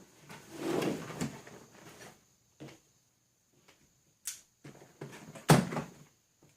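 Unboxing handling noises: a soft rustle of packaging for a couple of seconds, then a sharp click and, about five and a half seconds in, a louder knock as something is set down or bumped.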